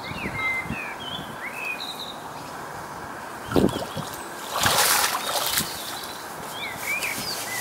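Boots sloshing and splashing through shallow lake-edge water as a man wades out, with a knock about three and a half seconds in and the loudest splashing about a second later. Small birds chirp throughout.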